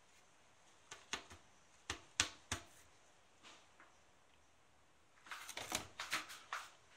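A washed disposable nonwoven face mask crinkling as it is crumpled in the hand: a few sharp crackles from about one to two and a half seconds in, then a denser run of crackles near the end.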